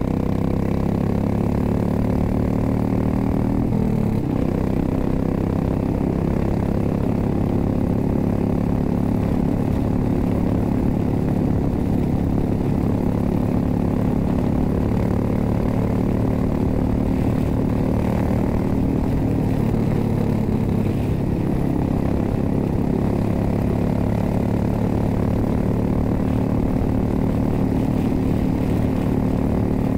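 2006 Suzuki S40 Boulevard's 650cc single-cylinder engine running steadily while the motorcycle cruises at speed, with a brief dip in the engine note about four seconds in.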